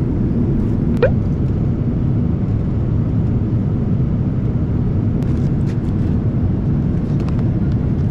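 Airliner cabin noise in cruise on a Boeing 787: a steady, even low rumble. A short rising squeak sounds about a second in, and a few light clicks follow later.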